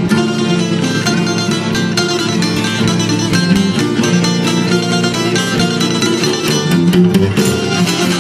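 Albanian folk orchestra playing instrumental music on plucked strings: çiftelis and guitar picking a quick, busy melody over a steady accompaniment.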